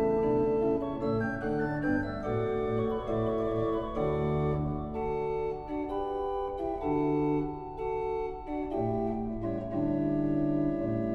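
Pipe organ playing slow, sustained chords in a classical slow movement, the notes changing every half second to a second or so.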